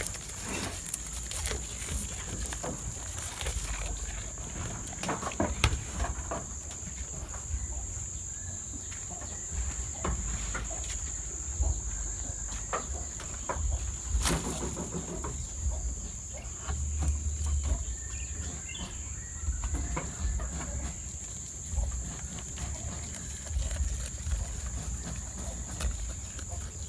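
Goats tearing at and chewing leafy awar-awar branches: rustling leaves and irregular crackles and snaps of stems, over a steady high-pitched drone.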